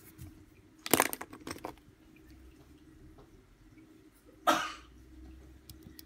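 Pencils being handled on a desk: a quick cluster of clicks and clatters about a second in, then a brief swish a little after four seconds in.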